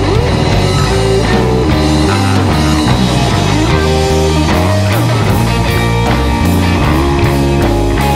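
Rock instrumental break: guitar playing sustained lead notes with some sliding bends over bass and a drum kit, with evenly repeating cymbal hits from about halfway.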